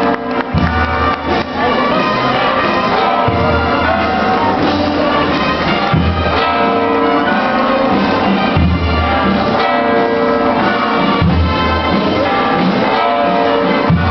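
Church bells pealing, several bells ringing together with long overlapping tones.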